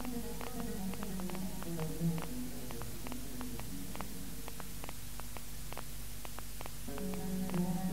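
Moroccan Andalusian (al-āla) orchestra in an old recording with steady hiss and hum. For the first couple of seconds the instruments hold a low melodic line. It then thins out to little more than light taps, and the ensemble comes back in near the end.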